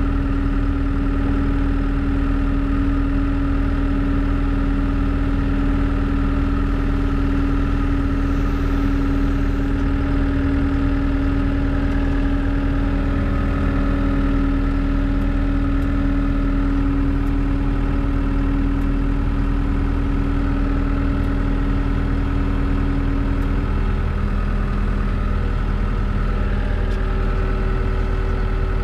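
Tractor engine running steadily at low speed, heard from inside the cab, with a slight change in its pitch late on.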